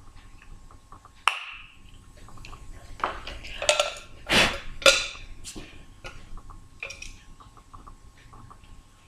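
Small hard objects being handled and set down: a sharp click about a second in, then a cluster of knocks and clinks in the middle, and a lighter click near the end, as make-up items and a brush are put away.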